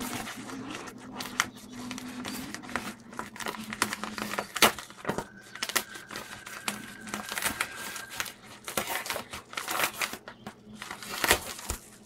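A yellow paper mailing envelope being torn and pulled open by hand: irregular crinkling and tearing, with a couple of sharper snaps, the loudest about four and a half seconds in.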